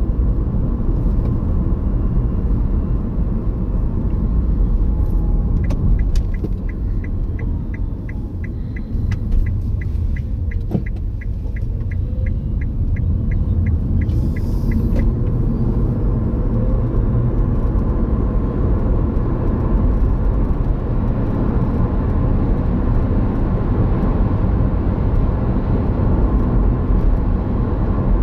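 Steady road and engine rumble inside a moving car's cabin at about 30 to 40 mph. In the middle a light, regular ticking at about three a second runs for several seconds, like a turn indicator at a junction, with one short knock partway through.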